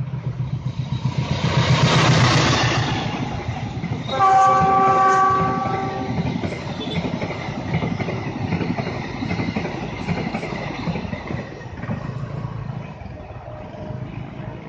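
Diesel locomotive hauling a passenger train passes close at speed, its engine and wheels loudest about two seconds in. About four seconds in its horn sounds a steady chord for about two seconds, then the carriages rush by with the wheels clattering rhythmically over the rails.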